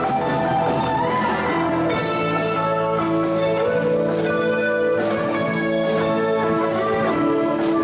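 Live jazz band playing instrumental music on electric guitars, keyboard and drums, with a guitar note bending up and back about a second in.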